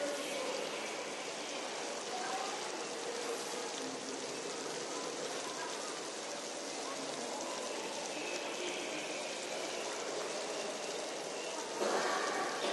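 Steady hiss-like ambience of a large stone hall, with faint distant voices echoing.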